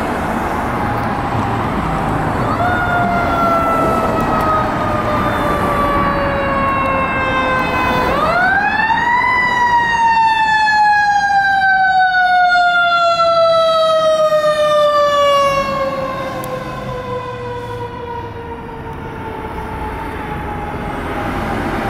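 Fire engine siren sounding over traffic and engine noise. It winds up quickly about two and a half seconds in and slowly falls in pitch, then winds up again, higher, about eight seconds in and falls slowly. It is loudest in the middle and fades after about fifteen seconds as the truck passes and moves away.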